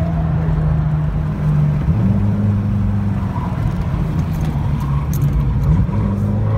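Cabin sound of a turbocharged 2015 VW GTI at low revs over steady road and tyre noise as it slows for a corner and shifts down from fourth to second. The engine note changes pitch about a second and a half and two seconds in, and starts to rise again near the end as the throttle goes back on.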